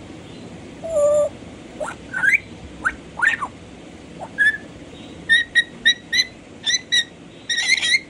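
African grey parrot whistling: a held low note about a second in, then several rising whistles, then a quick run of short, sharp, high chirps in the second half, ending in a denser flurry.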